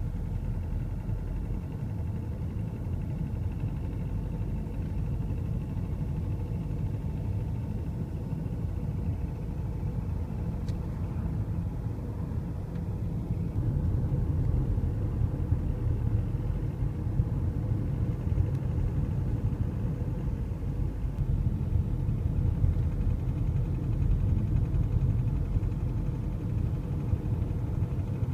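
BMW 520d's N47 four-cylinder diesel engine running steadily, with a knocking noise that shows up around 1500 rpm; the cause is unknown to the owner. The engine gets somewhat louder about halfway through, with sharper peaks from then on.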